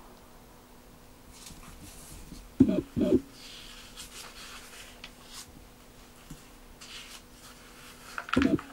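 Pages of an old paper booklet being handled and turned, with light papery rustles. About two and a half seconds in come two short, loud sounds half a second apart that rise and fall in pitch, and another like them near the end.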